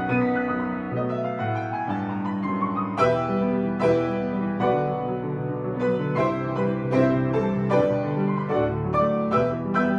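Piano playing, a quick passage of struck notes with a rising run of notes about a second in.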